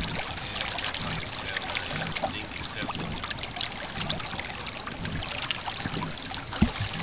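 Water trickling and lapping against the hull of an FJ 13 sailing dinghy under way, with a low thump near the end.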